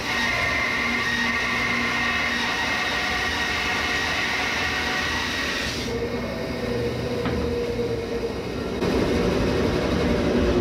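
JET JWBS-14SFX 14-inch steel-frame bandsaw (1¾ hp) resawing a quarter-inch slice off a 13-inch-tall black walnut board, the blade cutting steadily with a dust collector running. About six seconds in the cutting sound drops away as the blade comes out of the board, and the saw and dust collector keep running.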